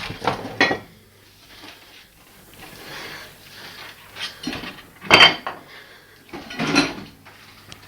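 Dishes and kitchenware being handled: a run of separate clinks and clatters, the loudest about five seconds in.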